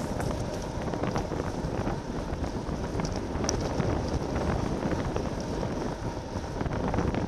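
Wind buffeting the microphone of a bike-mounted camera at about 33 mph in a strong crosswind: a steady, ragged rush of noise.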